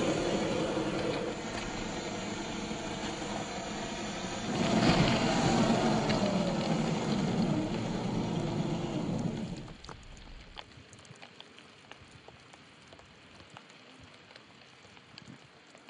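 Drivetrain of a 1/10-scale RC crawler on an Axial SCX10 III chassis: the electric motor and gears whine as it drives, rising and falling in pitch around five seconds in. The whine cuts off about ten seconds in, leaving light rain patter with scattered drop ticks.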